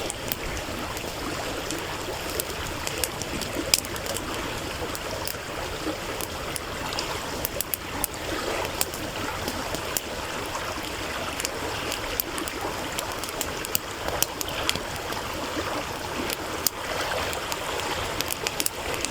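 A stream flowing steadily, with a wood campfire crackling over it in many sharp, irregular pops; one pop about four seconds in is louder than the rest.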